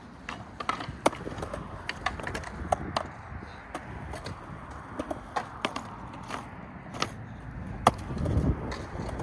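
Skateboard wheels rolling on a concrete bowl with a steady rumble, broken by many sharp clacks of the board against the concrete and the bowl's coping. The loudest clacks come about a second in and near the end, where the rolling rumble also grows louder.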